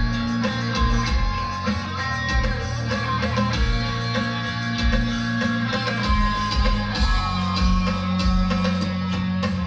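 Live rock band playing from the audience's viewpoint: electric guitar to the fore over sustained bass notes and a steady drum beat.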